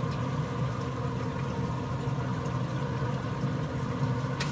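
Pit Boss 1150PS pellet smoker's combustion fan running with a steady hum while the grill holds cooking temperature, with one click near the end.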